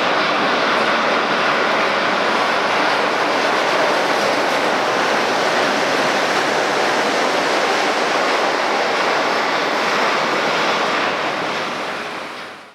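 Shonan Monorail 5000-series suspended monorail train running on its rubber tyres, a steady, even running noise that fades out near the end.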